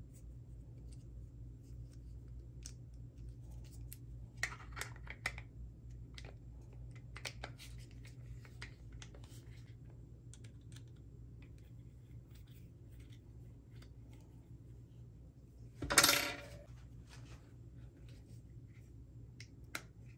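Small plastic-and-metal clicks and taps from handling a compact pistol weapon light and a hex key on the pistol's frame, in scattered groups. About three quarters of the way through comes one louder half-second scrape and click as the light is slid onto the pistol's accessory rail.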